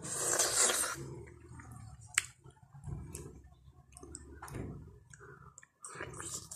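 Close-up wet mouth sounds of eating santol pulp: smacking and sucking at the fruit, in irregular bursts, loudest in the first second, with a sharp click about two seconds in.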